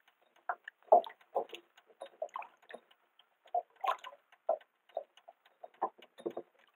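Irregular short knocks and taps, roughly two a second, some louder than others.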